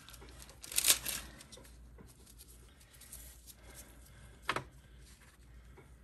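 Gloved hands handling craft supplies on a paper-covered table: a short rustle about a second in, then a single sharp click a little past four seconds.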